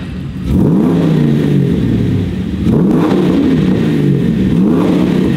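Land Rover Defender 110's swapped-in 6.2-litre GM LS3 V8 revved three times at standstill, each blip rising and falling back to a rumbling idle. The engine is cold, so the revs are kept short.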